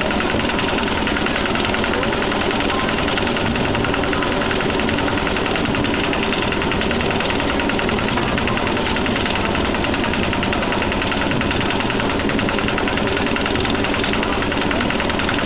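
Lister autotruck's small diesel engine running steadily with a fast, even knock as it travels along the narrow-gauge track.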